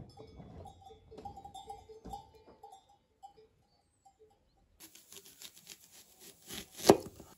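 Kitchen knife slicing a red onion into rings on a wooden cutting board: a run of quick cuts, with one sharp knock of the blade on the board near the end. Before the cuts, faint repeated short notes from a cattle pasture.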